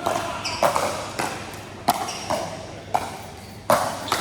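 Pickleball paddles striking a hard plastic pickleball: about eight sharp, ringing pops in quick, uneven succession during a rally.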